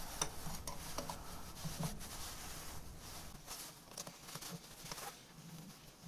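Faint scattered clicks, scrapes and light knocks of tools and metal parts being handled at a lathe chuck as it is adjusted and tightened. A low background hum drops out about halfway through.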